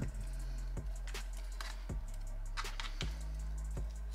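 Scattered light clicks of chopsticks tapping against each other and the plastic bowl while food is arranged, over background music with a low bass line.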